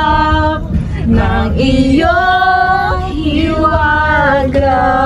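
A woman singing long held notes, with no clear instruments, over a steady low rumble.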